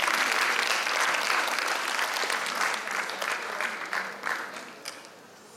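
Audience applauding in a hall, dying away over the last couple of seconds.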